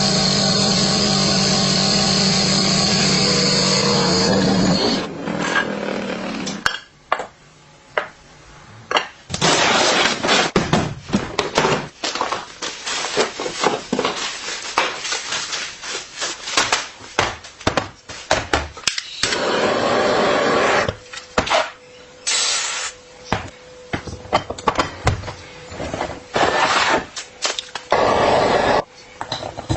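Background music for about five seconds, then hand tools working on rusty metal bicycle parts: irregular clicks, knocks and short scraping or brushing strokes.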